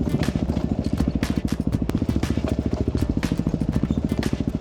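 Single-cylinder dirt bike engine running at low revs, its firing pulses fast and even, with scattered sharp clacks over it.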